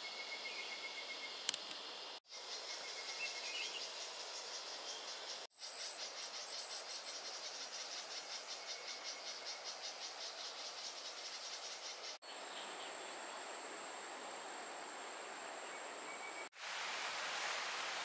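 Forest ambience of insects chirping: a fast, even pulsing chirp in the middle and a steady high trill later, broken by several abrupt cuts. Near the end it switches to the even rush of a flowing stream.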